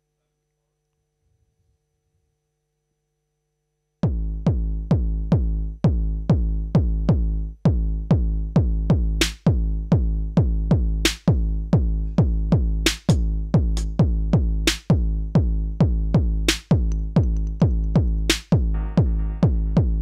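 Near silence, then about four seconds in a modular synth drum pattern starts, sequenced by the Erica Synths Drum Sequencer. It is a fast repeating run of deep pitched drum hits, each falling in pitch, in a dub-inspired style. From about nine seconds in, a sharp snare-like hit lands roughly every two seconds.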